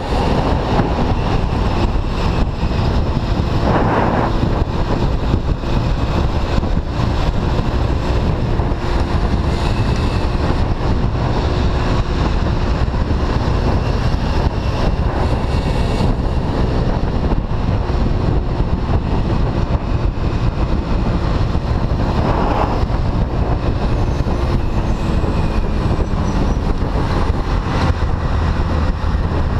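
Steady wind noise on the microphone of a moving Honda Lead scooter, with the scooter's engine humming underneath. Two brief swells of noise pass over it, one early on and one about three-quarters of the way through.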